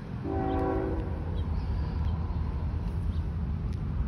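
Train air horn sounding one short blast of several tones together, about a quarter second in, over a steady low rumble of the approaching train.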